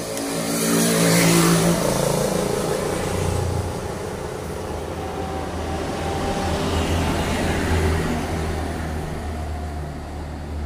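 A motor engine running with a low steady hum. It swells louder about a second in, as a vehicle passing close by would, then settles back to a steady drone.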